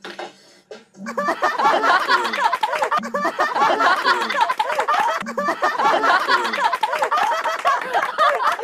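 A group of young men laughing together, many voices overlapping. The laughter starts about a second in and keeps going loudly.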